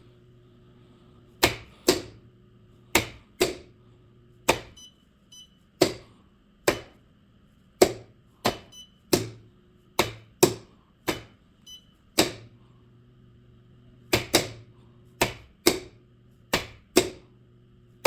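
Magnetic contactors in a three-phase motor control box clacking on and off again and again: about thirty sharp clicks at uneven spacing. Between some of the clicks there is a low hum from the energised contactor coils while they are pulled in.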